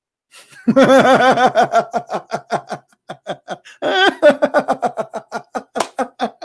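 A man laughing loudly in long runs of quick 'ha-ha' pulses, about five or six a second. A second bout of laughter starts about four seconds in.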